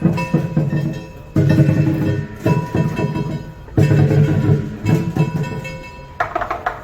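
Background music led by a plucked guitar, in phrases that begin with a strong note about every second and a half and fade away.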